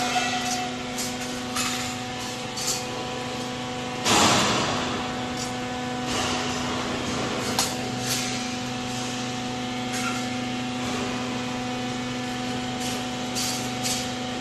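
Steady electrical machinery hum in a workshop, with scattered light knocks and clicks of handling. A louder rasping burst of noise lasts about half a second, about four seconds in.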